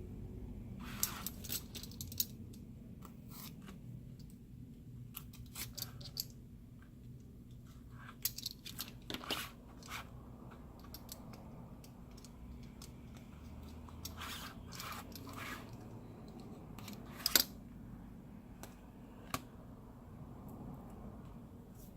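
Scattered small clicks and brief scratchy rustles of hands and small tools working adhesive strips onto a phone's frame, over a steady low hum, with one sharper click about three-quarters of the way through.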